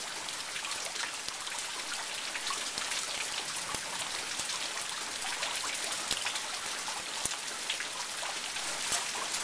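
Heavy rain falling, a steady hiss with scattered sharp taps of drops.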